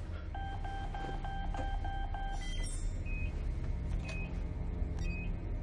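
Electronic alarm beeping rapidly, about four pulses a second for two seconds, then changing to single higher beeps about once a second. Underneath is a steady low rumble of spacecraft ambience.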